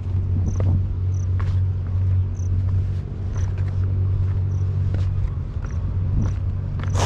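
A steady low rumbling drone like a motor running, with a short high chirp repeating every half-second or so and scattered light taps.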